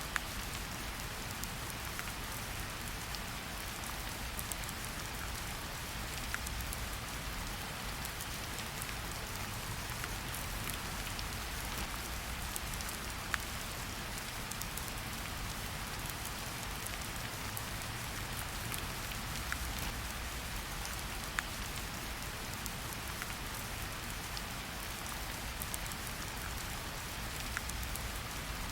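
Steady rain hiss with a low rumble underneath and scattered sharp crackles from a fireplace, a few standing out, about 13 and 21 seconds in.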